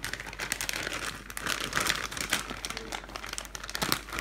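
A zip-top plastic bag of slime being handled, crinkling and crackling in irregular bursts, with a sharper crackle near the end.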